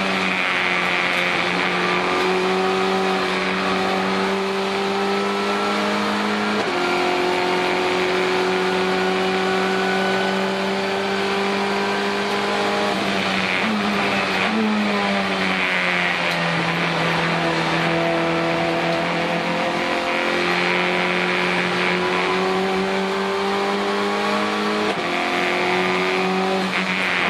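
Renault Clio Cup race car's four-cylinder engine heard from inside the cockpit, running hard at high revs with its pitch climbing slowly. The pitch steps suddenly several times at the gear changes.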